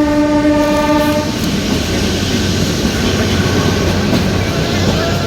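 Horn of the narrow-gauge Kalka–Shimla toy train holding one steady tone, which stops about a second in. The train's running noise, a steady rumble and rattle, carries on underneath and after it.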